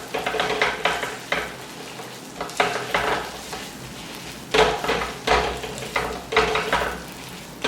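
A spatula scraping and pressing on an iron tawa, spreading and mashing toppings over a dosa that is sizzling on the griddle. The strokes come in quick groups with short pauses between them.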